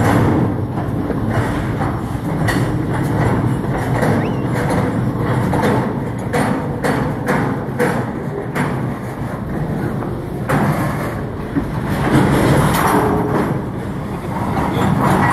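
CSX freight train's container cars rolling past at close range: a steady rumble of steel wheels on rail, with a run of sharp clicks and clanks from about two to nine seconds in.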